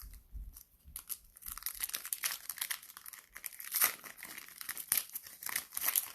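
Plastic cellophane wrapper of a trading-card cello pack crinkling and tearing as it is opened by hand, a dense run of irregular crackles.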